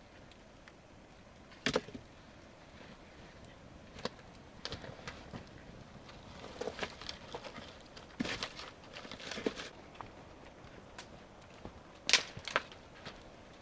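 Scattered sharp cracks and knocks of dry twigs and wood, irregular and spread through, loudest about two seconds in and again near the end.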